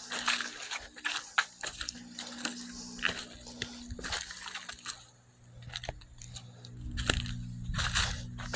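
Footsteps crunching irregularly over rough, debris-strewn ground, with a faint steady low hum underneath.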